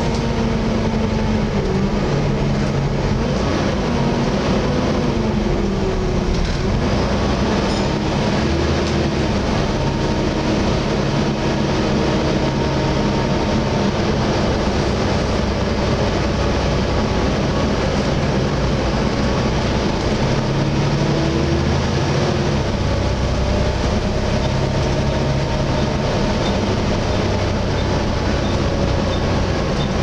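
Volvo B7TL double-decker bus on the move, heard inside the cabin: the engine cooling fan's loud, steady hoover-like rush over the engine, whose pitch rises and falls several times with the bus's speed.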